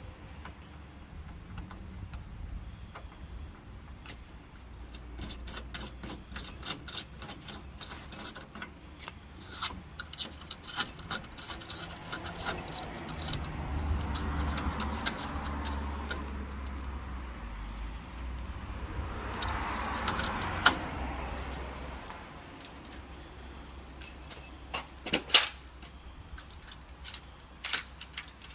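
Keys jangling and metal clicking from hand work on a door's mortise lock cylinder as it is changed out. There are two longer stretches of steadier noise around the middle, and a few sharp clicks near the end.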